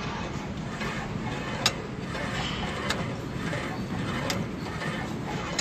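Gym room noise with three sharp clicks from equipment, about a second and a half apart.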